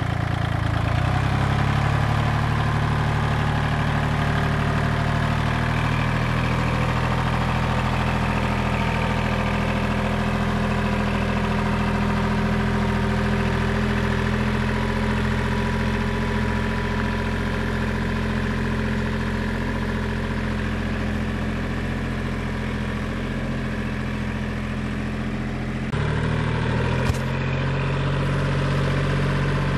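Kubota compact tractor's diesel engine running steadily as the tractor drives along. The sound shifts abruptly near the end, followed by a brief click.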